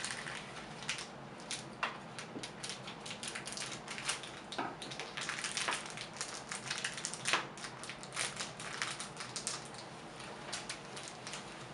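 Small plastic toy figure pieces and foil blind-bag packaging handled by hand, making irregular crinkling and clicking as the pieces are pressed together.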